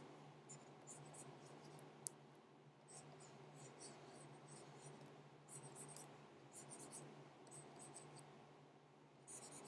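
Faint scratching of a stylus drawing on a graphics tablet in short strokes, over a low steady hum; one sharp tick about two seconds in.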